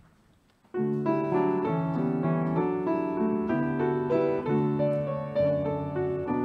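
Piano starts about a second in, playing slow, sustained chords that change every half second or so.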